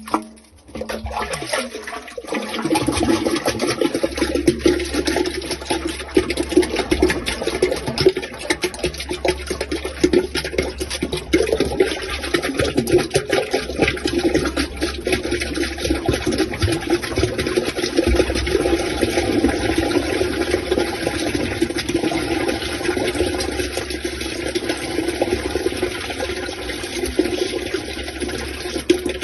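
Water running and splashing through a drain, steady with small crackling splashes and a low rumble.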